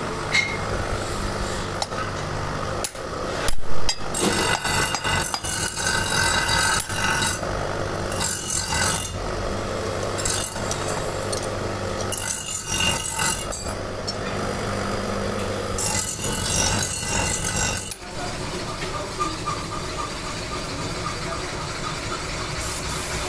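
Hand tools scraping, rasping and tapping on a small metal water-pump part, in several stretches with one sharp knock about four seconds in, over a steady low machine hum.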